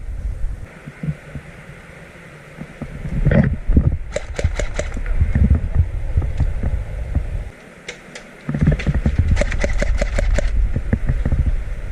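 Low irregular thumps and rubbing against a body-worn action camera as the player moves, with clusters of sharp clicks about four seconds in and again from about nine to eleven seconds.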